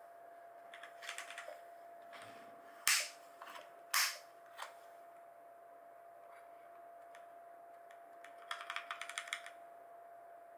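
Typing on a Razer BlackWidow Lite mechanical keyboard with orange switches: short quick runs of key clicks, with two louder sharp clacks about three and four seconds in and a last flurry of clicks near the end.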